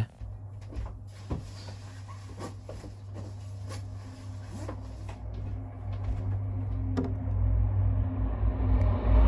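MBTA commuter train led by an EMD GP40MC diesel locomotive approaching, a low rumble with a steady hum that grows louder toward the end, with a few faint clicks.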